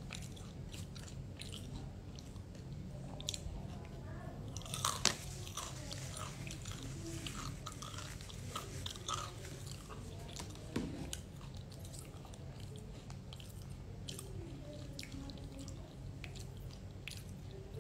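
Chewing and crunching of crispy battered fried cabbage: irregular crisp crunches, the loudest about five seconds in, over a low steady hum.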